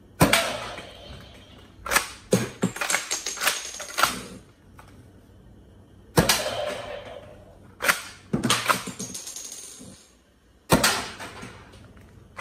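Toy 1887 Winchester-style lever-action shotgun firing three times, each shot a sharp crack with a short ringing tail. Between the shots comes a quick run of plastic clicks and clacks as the lever is worked to reload.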